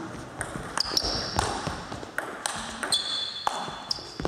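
Table tennis rally: the ball clicking sharply off the bats and the table at an irregular pace, with high squeaks of shoes on the sports hall floor.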